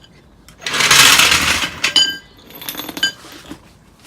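Workshop noise while a small jack is lowered under the car's rear suspension: a loud rushing noise lasting about a second, then metal clinking twice with a brief ring.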